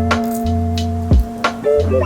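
Background music: held chords over a low bass line, with a few drum hits.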